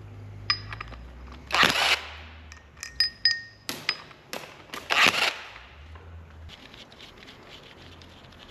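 Hand work on engine parts: metal tools and parts clicking, knocking and clinking, a few with a short ringing tone, with two short rushing noises about one and a half seconds and five seconds in.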